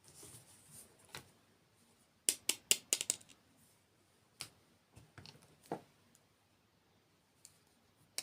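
Close-miked crisp clicks and crunches of dessert eating, with a quick run of about six sharp crunches a little over two seconds in and single ones scattered around it.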